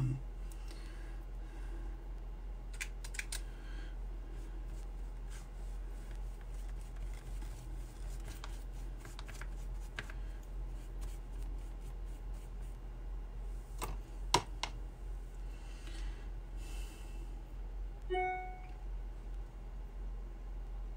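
Light scattered clicks and taps of a paintbrush working against a metal watercolor paint tin and paper, the loudest two close together about two-thirds of the way through, over a steady low hum. A short pitched squeak-like tone sounds near the end.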